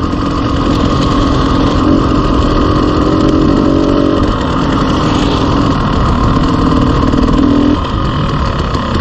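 Dirt bike engine running steadily at low trail speed over a steady rush of riding noise; about three-quarters of the way through the engine note drops as the bike slows.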